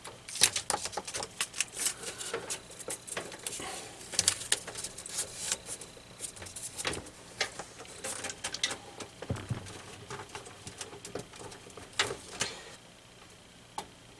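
Irregular sharp clicks and light rattles of small metal parts of a CPU cooler mounting kit (back bracket, screws and post extensions) being handled and fitted to a PC, with one duller knock about nine seconds in; it goes quieter near the end.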